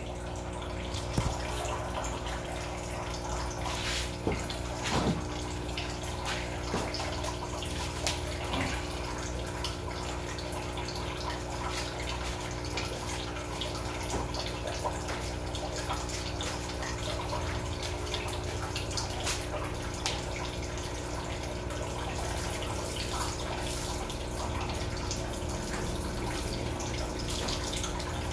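Water running and trickling as freshly harvested baby brine shrimp (Artemia) are rinsed in a fine-mesh fry net, with scattered drips and small knocks. A steady low hum runs underneath.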